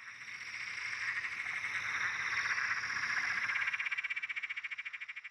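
A chorus of frogs calling, a fast pulsing trill that swells over the first few seconds and fades out near the end.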